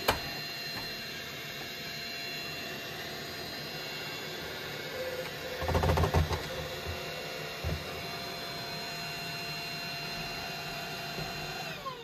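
Samsung Jet Bot AI+ robot vacuum running with a steady whine from its suction fan as it drives onto its Clean Station dock, with a cluster of low bumps about six seconds in as it climbs the dock's base plate. Near the end the fan winds down in pitch as it docks.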